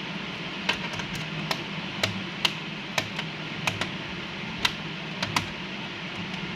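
Sharp plastic clicks and taps, about a dozen at irregular intervals, from fingers and fingernails working at the battery and plastic casing on the underside of an Acer laptop, over a steady background hum.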